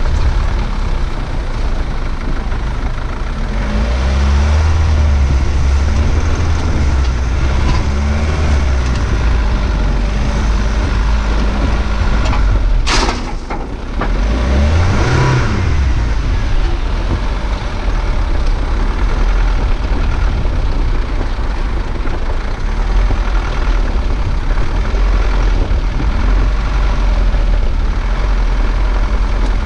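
SsangYong Actyon Sports 4x4 ute driving over loose river gravel, its engine and rolling noise running steadily. The engine note rises and falls over the first several seconds. A sharp knock comes about 13 seconds in, followed by a short rise and fall in engine pitch.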